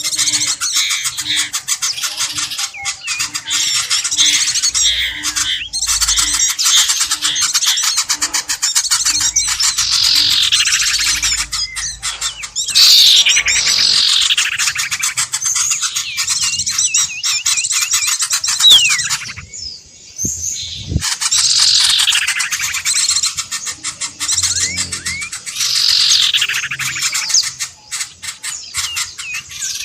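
Bird-lure recording: a dense chorus of small birds chirping and squawking, with repeated loud calls that sweep downward in pitch. A soft low pulse about twice a second runs under it for the first third, and the chatter breaks off briefly past the middle.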